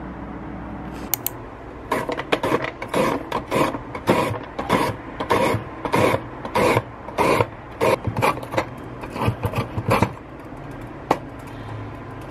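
Carrot being shredded on a plastic julienne slicer, pushed back and forth over the blades in rasping strokes about two a second.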